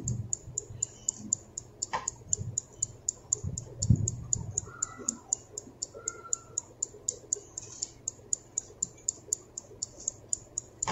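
Countdown-timer ticking sound effect: fast, even, sharp ticks, about four a second. A couple of soft knocks, about two and four seconds in.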